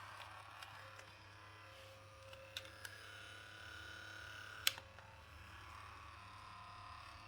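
Sharp plastic clicks from a Sony WM-FX43 cassette Walkman being handled and its controls worked: two small clicks, then a louder one a couple of seconds later, over a faint steady hum.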